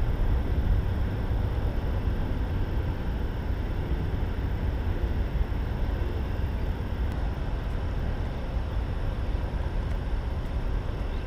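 Steady drone of highway traffic: a continuous low rumble with no breaks or distinct passes.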